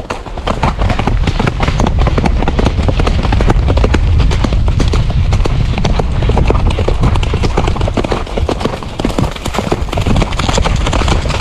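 Hoofbeats of a horse moving fast on a leaf-covered dirt track, a dense run of thuds.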